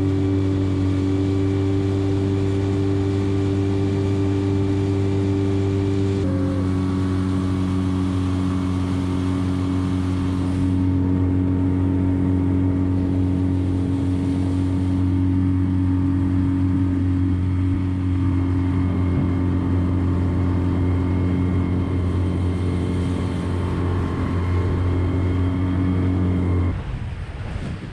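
Dinghy outboard motor running steadily at cruising speed, its pitch dropping slightly about six seconds in, then cutting off shortly before the end.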